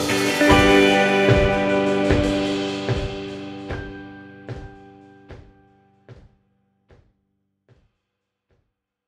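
Background music with sustained chords and a steady drum beat, about one hit every second, fading out; the chords die away about six seconds in and a few faint drum hits trail on after.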